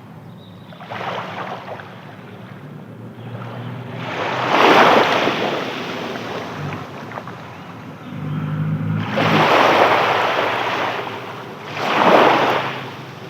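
Sea waves breaking and washing in, in repeated surges that swell and fade every few seconds; the biggest break about four to five seconds in and again near the end, with a longer wash in between.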